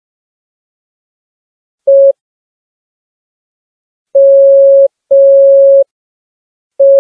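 Morse code tone from a smartphone Morse practice app, one steady beep keyed slowly: a short dit, then about two seconds later two long dahs back to back, then another dit starting near the end. There is dead silence in the gaps.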